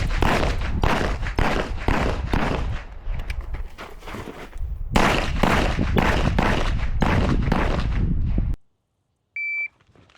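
Rough buffeting noise on the microphone, rumbling and surging about twice a second, that cuts off suddenly; near the end, one short electronic beep from a shot timer.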